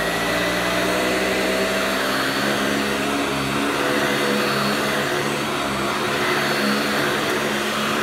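Eureka heavy-duty commercial upright vacuum cleaner running on a rug: a steady motor whine over the rush of air. It sucks itself down onto the carpet, which the owner puts down to the height not being adjusted right.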